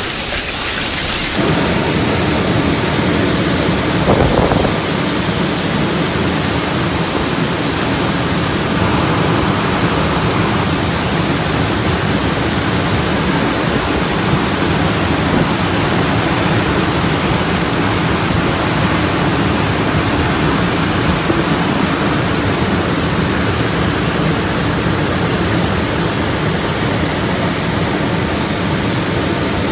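Heavy storm downpour falling steadily: a dense, even rush with a deep low rumble, and a brief louder burst about four seconds in.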